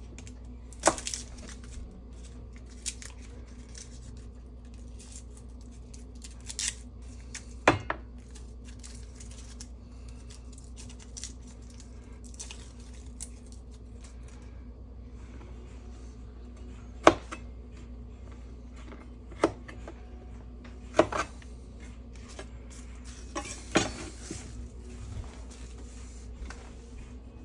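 Chef's knife on a wooden cutting board while garlic cloves are peeled and trimmed: scattered sharp taps and knocks, about ten in all, the loudest about 17 seconds in, over a steady low hum.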